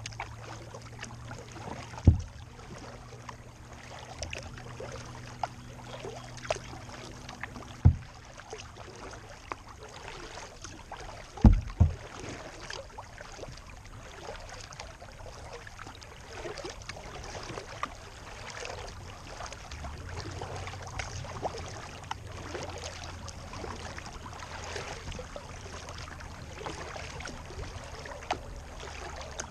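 Water lapping and splashing against a kayak's hull as it moves through choppy lake water, with a few loud low thumps, about two, eight and eleven and a half seconds in. A faint steady low hum lies under it for the first nine seconds and again in the last ten.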